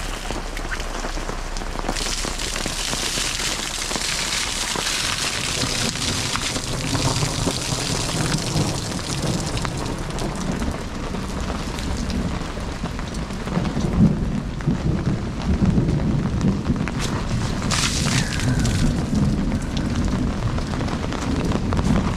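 Heavy rain falling on a pop-up canopy and the sodden ground, with runoff pouring off the canopy's edge. A low rumble comes in during the second half.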